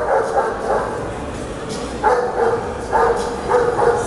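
A dog barking repeatedly in short runs of two or three barks.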